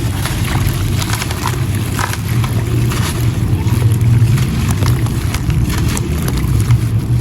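Gritty sand-cement chunks crumbling in water: many small irregular crackles and crunches over a steady low rumble.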